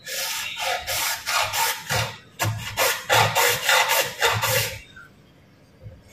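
Rhythmic rasping strokes of a hand tool worked back and forth, about two a second, stopping about five seconds in.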